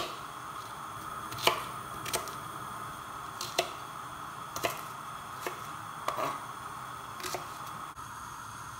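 Kitchen knife chopping an onion on a cutting board: separate sharp knocks, about one a second, over a steady faint hum.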